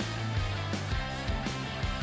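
Background music: an upbeat rock track with guitar and a steady beat.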